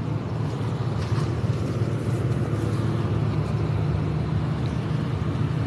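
Tugboat's diesel engine running steadily under way, a continuous low drone.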